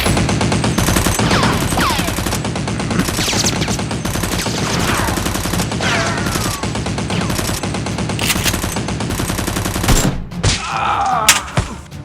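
Rapid, continuous automatic gunfire sound effects, dubbed onto a Nerf gunfight, with a few falling whistles among the shots. The fire cuts off about ten seconds in, and a few separate sounds follow.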